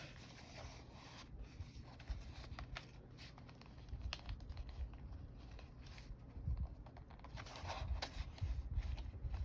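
Paper bills and envelopes being handled: soft rustling and rubbing of paper, with scattered light clicks and dull low thumps against a tabletop.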